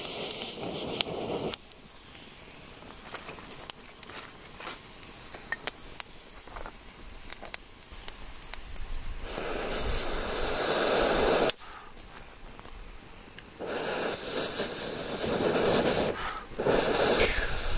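Small wood fire crackling with scattered sharp pops. Twice, after about nine seconds and again past the thirteenth second, a long rush of air as the fire is blown on through a metal blow pipe.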